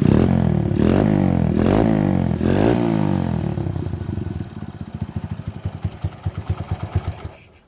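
Honda Sonic motorcycle running through an aftermarket Over Racing Project exhaust on a stock engine: four quick throttle blips, each falling back in pitch, then a slow, loping idle of separate exhaust pulses that fades and stops near the end.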